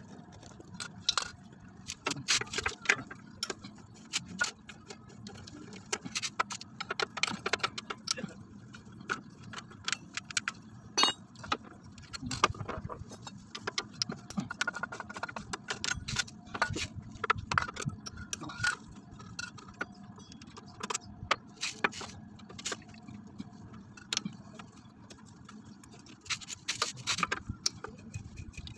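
Socket wrench working the bolts of a Honda Vario 125 scooter's CVT cover: irregular metallic clicks and clinks in short runs as the tool is fitted and turned on the bolts.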